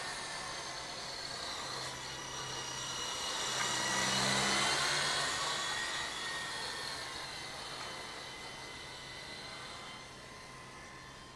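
Wltoys V912 RC helicopter in flight: a steady high whine from its brushless main-rotor motor and spinning rotors. It grows louder toward the middle, about four seconds in, then fades as the helicopter moves farther off.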